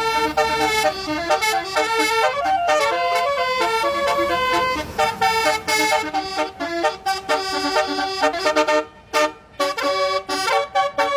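Bus telolet horn (basuri-type multi-tone air horn) playing a quick melody, its notes stepping rapidly up and down. Near the end the notes turn short and choppy, with a brief pause.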